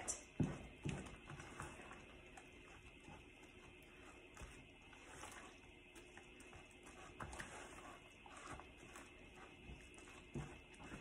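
Faint, irregular stirring of wet flour, yeast and water in a plastic bucket with a plastic spoon, mixing a bagel sponge, with occasional soft knocks of the spoon against the bucket.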